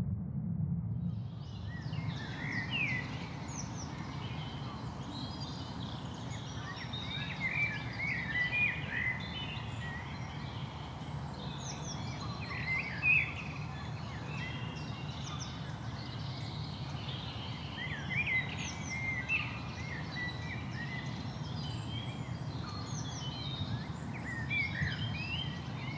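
Small birds chirping and calling over a steady low outdoor rumble; the calls begin about a second in and come in quick scattered bursts, a little louder around the middle.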